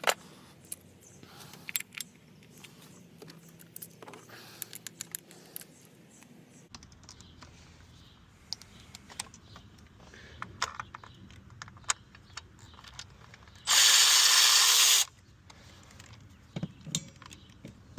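Hand tools clicking and clinking against metal in an engine bay during socket-and-ratchet work. About three-quarters of the way through there is one loud, even hiss lasting just over a second.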